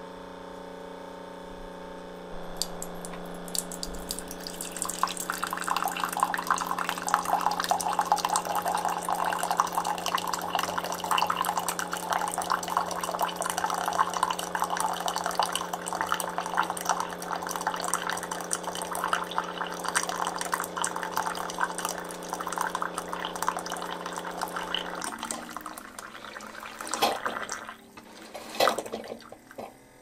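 Keurig K-Elite single-serve brewer dispensing 8 ounces of hot water on a water-only cycle: its pump hums steadily while a stream of water splashes into a ceramic mug. The pump stops about 25 seconds in, and the flow ends with a few sputters.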